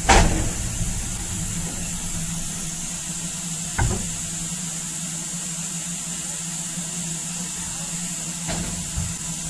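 A steam saddle-tank locomotive and its train running along the track: a steady low rumble under a constant hiss. Sharp knocks come at the very start, the loudest, then again about four seconds in and twice near the end.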